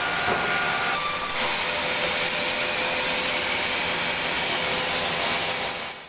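Heavy rain falling steadily, a dense even hiss, with a faint steady hum underneath.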